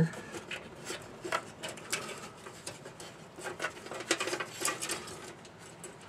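Cables and plastic connectors being moved around by hand inside a steel computer case: irregular light clicks, taps and rustles.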